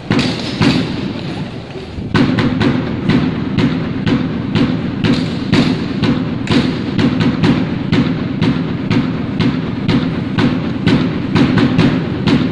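Music with a heavy, steady drum beat, about two beats a second, getting louder about two seconds in.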